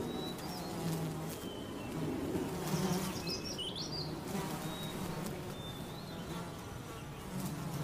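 Flies buzzing around a roadkill badger carcass, the drone swelling and fading as they move. A few short bird chirps about three seconds in.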